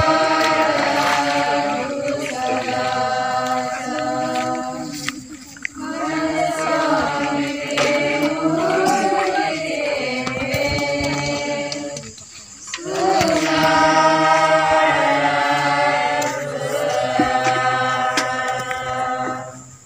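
A group of voices singing a hymn together, in three long phrases separated by short breaths about 5 and 12 seconds in.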